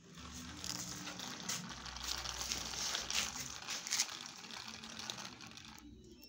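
Gritty crackling and scraping on a rough concrete floor, with a few sharper crunches about a second apart; it fades out near the end.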